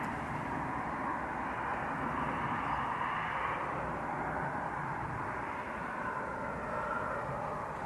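Steady hum and hiss of distant traffic on a main road, with no single vehicle standing out.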